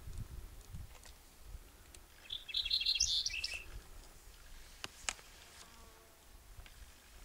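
Cinereous bunting singing one short, high song phrase of about a second and a half, a couple of seconds in. Two short sharp clicks follow about five seconds in.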